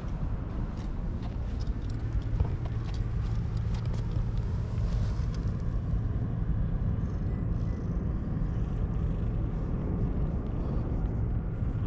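A steady low mechanical rumble with a hum. Footsteps on brick paving sound in the first few seconds as the walker closes in.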